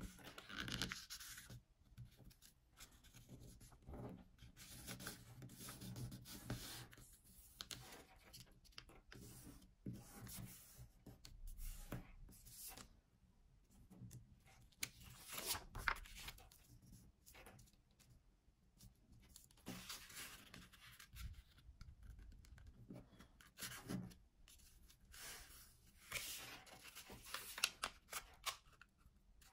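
Sheet of two-colour origami paper being folded and creased by hand: faint, irregular rustling and scraping strokes as fingers slide along and press the folds.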